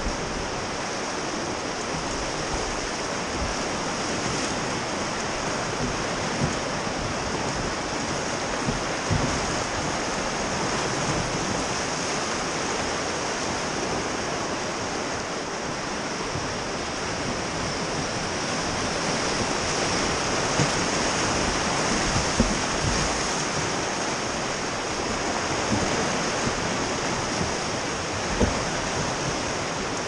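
Fast, turbulent whitewater of the Rogue River rushing steadily around a rowed raft, a continuous hiss of current, with now and then a brief knock.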